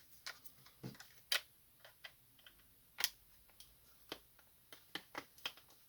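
Light, irregular clicks and taps of plastic parts being handled and fitted together on an opened laser-printer toner cartridge, the sharpest about a second and a half in and again at three seconds.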